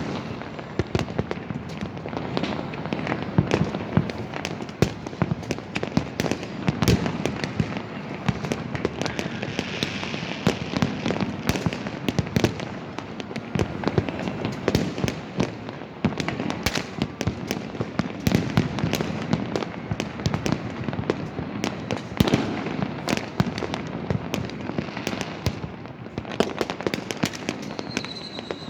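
Many fireworks and firecrackers going off at once: a continuous barrage of sharp cracks and deeper booms, with a short whistle near the end.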